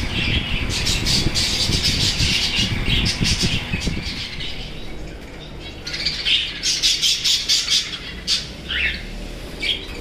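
A mixed flock of small cage birds, finches and budgerigars, calling in quick, high chirps: one dense bout over the first few seconds and another about six to eight seconds in, with a falling call near the end. A low rumble runs under the first few seconds.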